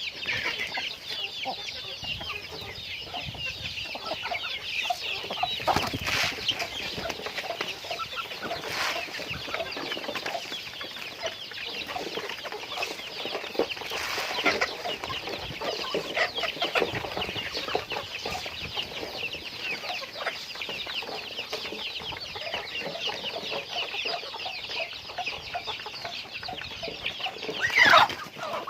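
A flock of chickens clucking and calling continuously, with many overlapping short calls. A few sharp knocks sound in the first half, and one loud, falling squawk comes near the end.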